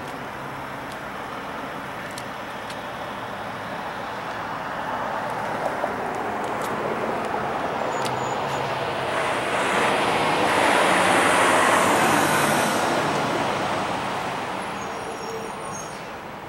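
A road vehicle passing by: its tyre and engine noise swells to a peak about two-thirds of the way through and then fades away, over a steady background rumble.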